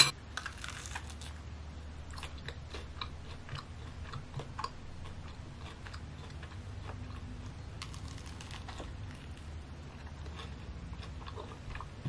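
A person biting and chewing a crumpet topped with peanut butter and tomato: faint, scattered soft crunches and mouth clicks over a low steady room hum.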